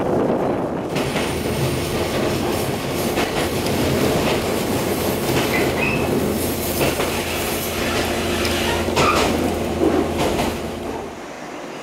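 Local train running on the Yahiko Line, heard from on board: wheels rolling over the rails with clatter and some squeal, over a steady hum.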